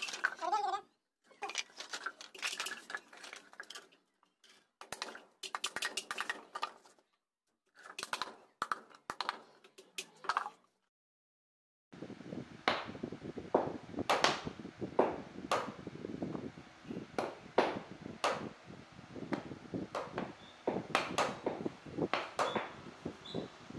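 Small hammers driving nails into plywood speaker-box panels: quick, irregular taps, more than one hammer at once. Over the first half the tapping comes in short stretches that cut off abruptly into silence; from about halfway it runs on without a break.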